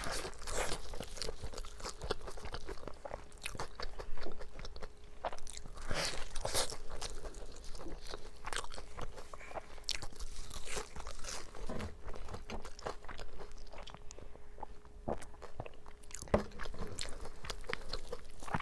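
Close-up crunching and chewing of breadcrumb-coated deep-fried food: irregular crisp crackles as the crust is bitten and chewed.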